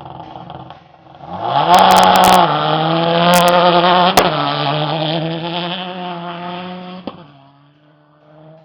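A vehicle engine, likely an off-road rally car, accelerates hard, its pitch rising, then drops in pitch about two and a half seconds in and runs on steadily before dying away near the end. A few sharp clicks come through over the engine in the first half.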